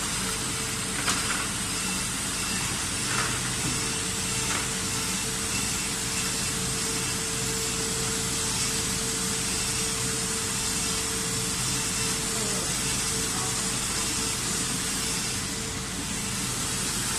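Inline PCB router running, its high-speed spindle and dust extraction making a steady hiss with a steady hum through it. A few light clicks come in the first few seconds.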